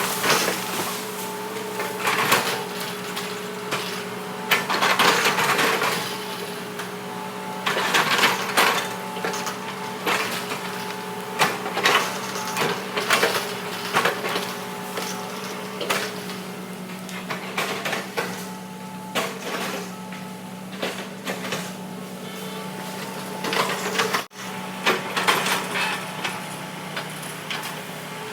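Hitachi excavator's diesel engine running steadily while the machine works, with repeated irregular cracking and crunching noises over it. There is a brief dropout in the sound about 24 seconds in.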